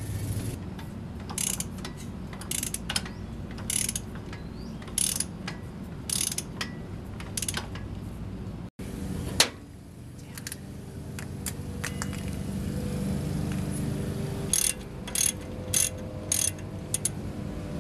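Hand socket ratchet clicking in short runs as a bolt on a truck's front suspension is turned: one run about a second in, another around five to seven seconds, and a last one near the end.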